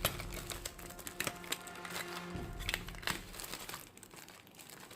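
Plastic packaging crinkling and crackling with scattered sharp clicks as it is cut open and handled.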